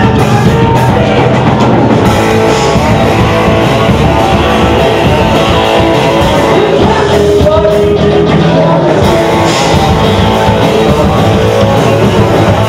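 Rock band playing a loud, steady song with indie and punk leanings: electric guitar, drum kit and singing.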